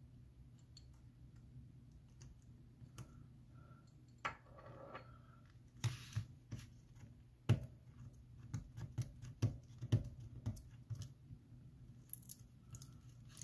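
Irregular small clicks, taps and a brief scrape of hand tools on a phone's frame and battery, from prying a stuck battery free of its brittle adhesive.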